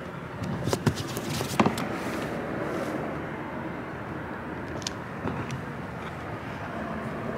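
Steady low outdoor rumble, with a few light clicks and knocks from hands working on a green plastic storage box lid. The sharpest click comes about a second and a half in.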